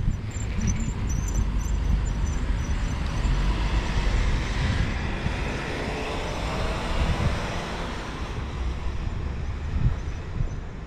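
Road traffic on the avenue alongside, with a car going by about halfway through, over a steady low rumble.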